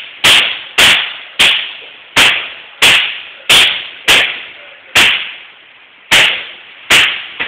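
Firecrackers going off one after another: about ten loud, sharp bangs spaced roughly half a second to a second apart, each trailing off in a short echo.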